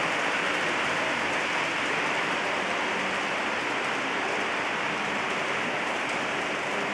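Model freight trains rolling over the layout's track, a steady even hiss of wheels on rail.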